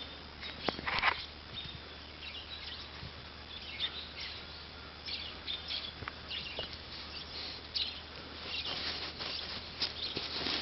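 German Shepherd puppy digging, its paws scraping at the ground in short scratchy spells that come thicker near the end.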